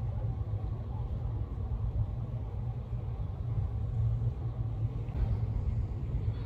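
Steady low rumble of a river cruise motor ship underway, its engines droning without change.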